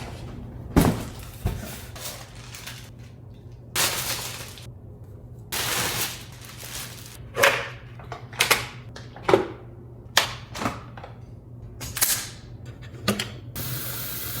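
Handling noises: about a dozen sharp clicks and knocks at irregular intervals, with short rustling bursts between them, over a faint steady hum.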